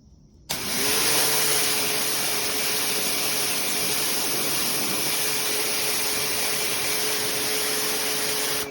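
Electric pressure washer motor starting about half a second in and rising to a steady whine over a loud hiss, then starting to wind down at the very end.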